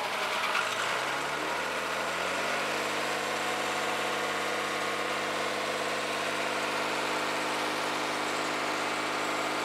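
Fiat-Allis loader's diesel engine picking up speed over the first couple of seconds, then running at a steady idle.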